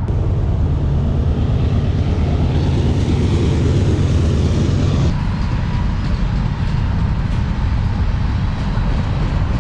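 A train rumbling steadily; about five seconds in, the higher part of the noise drops away.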